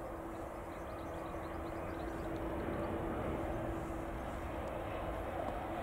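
Boeing 787 Dreamliner's jet engines on final approach: a steady rushing roar with a steady humming tone under it, swelling slightly about halfway through as the airliner draws closer.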